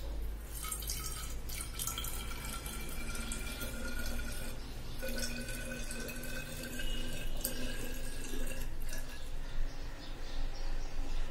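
Thick coconut milk pouring from a steel bowl into a glass bottle, trickling and gurgling in two spells with a short break between, with a faint ring that rises slowly in pitch as the bottle fills.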